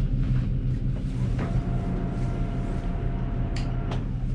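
Carver 43 motor yacht's inboard engines idling with a steady low hum.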